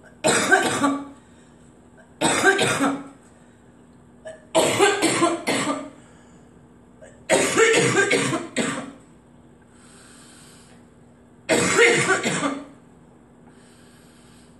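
A woman coughing in five bouts a few seconds apart, each a quick run of coughs lasting about a second.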